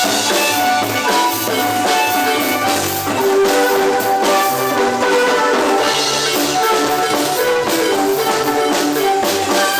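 Guatemalan marimba ensemble playing a lively tune: quick struck wooden-bar notes over a bass line, with drums keeping a steady beat.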